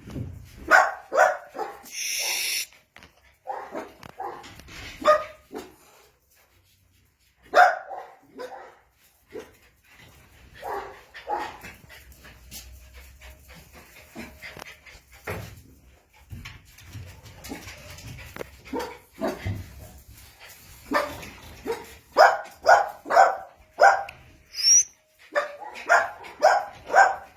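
Jack Russell Terrier puppies yapping and barking in play, in short scattered bursts, with quick runs of yaps in the last several seconds.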